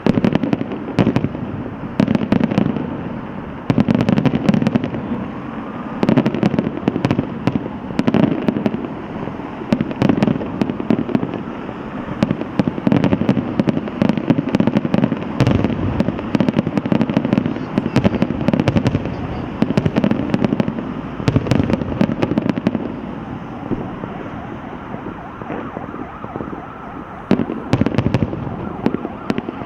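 Aerial fireworks display: a rapid run of booming shell bursts and sharp crackling bangs, coming in waves, easing off briefly before a fresh burst near the end.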